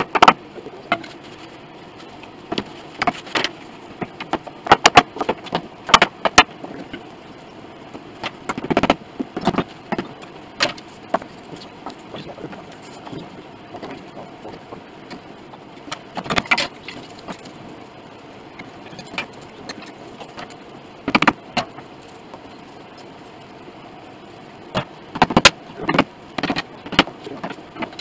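Irregular wooden knocks and clatter as wedges are set against a piano soundboard's ribs to clamp them while the glue dries. The knocks come singly and in short clusters, with gaps between them.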